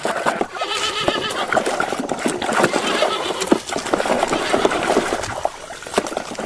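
Irregular clicks, knocks and rubbing from a plastic toy being handled and scrubbed clean, with a brief wavering squeak about a second in.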